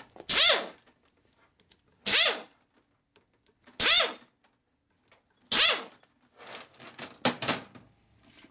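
Handheld air tool triggered in five short blips, each spinning up and winding down in pitch over about half a second.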